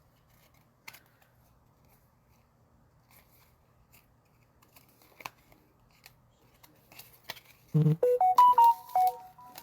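Faint scattered clicks and rustles of card packs being handled, then near the end a low thump and a short electronic jingle of about six quick stepped notes.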